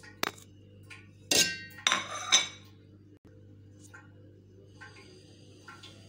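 Kitchen utensils clinking against a steel cooking pan while spices are added: a light knock just after the start, then a quick run of sharp, ringing metallic clinks about a second and a half in.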